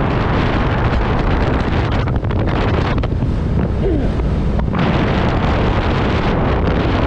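Loud, steady wind noise buffeting the microphone while moving along the road, with a low rumble underneath. For a second or two in the middle the hiss eases and a brief rising tone is heard.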